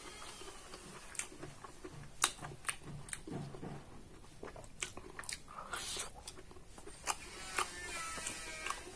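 Close-up eating sounds: a person chewing a mouthful of food with many short wet clicks, smacks and crunches, with a short hiss about six seconds in.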